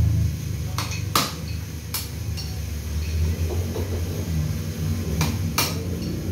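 Sharp metallic clinks of hand tools knocking against the parts of a dismantled chainsaw engine, about five of them in two clusters, over a steady low engine rumble in the background.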